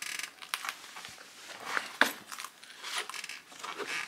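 Rustling and handling noises as a fur-edged leather knapping pad is laid across the lap and tools are picked up, with scattered small clicks and one sharper knock about two seconds in.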